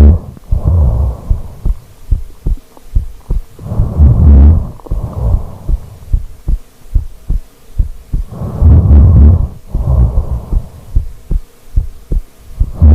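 Person snoring heavily. A loud, low, rattling snore comes about every four and a half seconds, each followed closely by a softer second breath.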